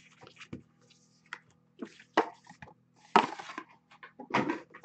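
Cardboard trading-card boxes and a stack of cased cards handled on a table: a series of light knocks and taps, a louder scuff about three seconds in, and another clatter near the end.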